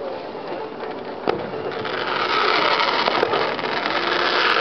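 Fireworks heard from a distance: a single sharp bang about a second in, then a louder, steadier wash of noise from about two seconds in, with a few sharp cracks near the end.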